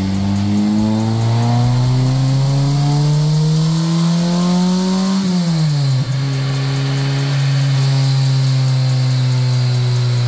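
Truck engine pulling through a gear, its pitch climbing steadily for about five seconds. A gear change about five to six seconds in drops the revs, and the engine then holds a steady cruise over a constant hiss of road noise.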